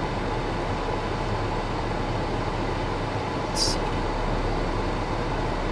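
Steady background noise inside a car cabin: an even rush with a low hum underneath, and a short hiss about three and a half seconds in.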